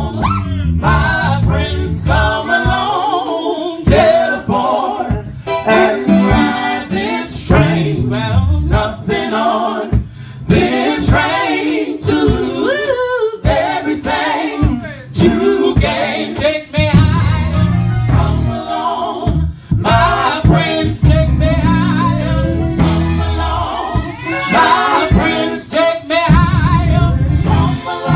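Live gospel singing: a woman and men singing together into microphones over a steady beat.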